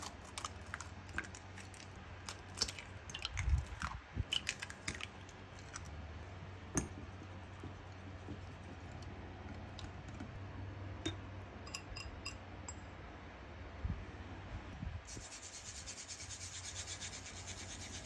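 Kitchen handling sounds: scattered clicks, taps and knocks with rubbing, over a steady low hum. About 15 seconds in a faint, finely crackling hiss joins.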